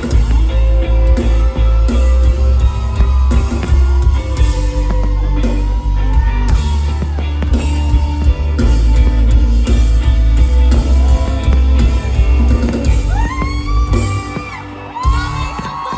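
Loud live amplified music with heavy bass and singing, heard through a phone recording in a concert crowd. High whoops and shouts rise over it near the end.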